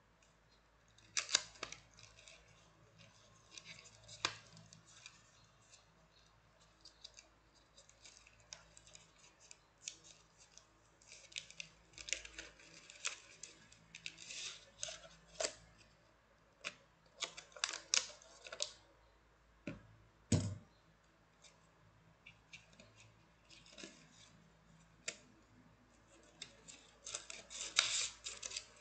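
A cardboard box being opened and its paper and plastic packaging handled, in irregular bursts of rustling, crinkling and sharp clicks, with one heavier thump about two-thirds of the way through.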